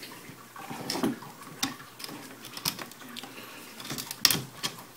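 A few scattered sharp clicks and light knocks, handling noise as the handheld camera is moved and a hand reaches toward the coil setup.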